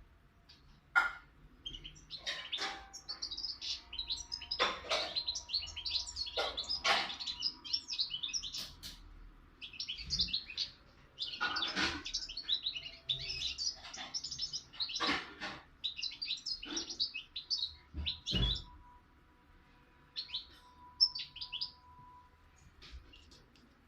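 Young caged songbird singing in fast twittering phrases of high chirps and trills, with short pauses between phrases and only a few scattered notes near the end.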